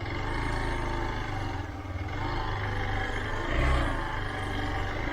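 Single-cylinder motorcycle engine running steadily at low revs.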